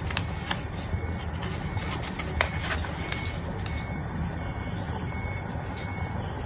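Glutinous rice boiling in water in a glass pot on the stove: a steady low rumble with scattered small pops and ticks, most of them in the first few seconds.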